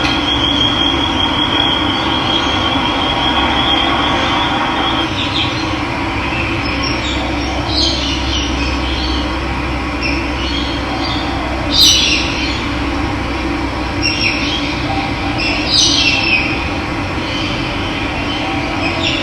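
Running water with a steady rush, with wild birds calling over it: a thin high trill in the first few seconds, then several short downward-sliding chirps.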